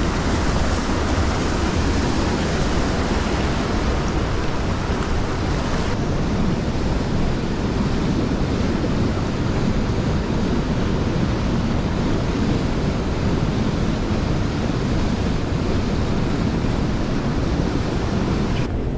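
Small trout stream running fast and full, a steady, dense rush of water.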